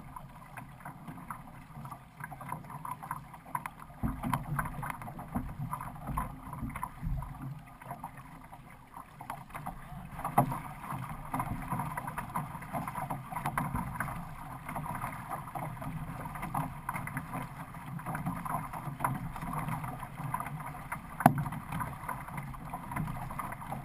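Paddle strokes splashing and water rushing along the hull of a six-person outrigger canoe under way, heard from on board, with a couple of sharp knocks: one about ten seconds in and one near the end.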